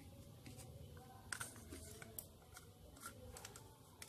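Faint room tone with a few scattered light clicks and taps of plastic pipe parts being handled.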